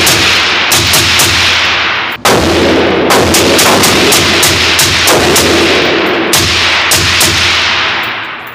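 Suppressed AR-15 fitted with a Superlative Arms retro piston kit and a Dead Air Sierra 5 suppressor, fired in rapid semi-automatic strings of about five shots a second during a 30-round magazine dump. Each shot echoes off the walls of the indoor range, and there is a brief break about two seconds in.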